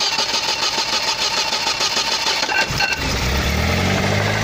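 VAZ-2101 1.2-litre carburetted four-cylinder engine being cranked over by its starter on the choke, turning over rapidly for under three seconds, then catching and running steadily.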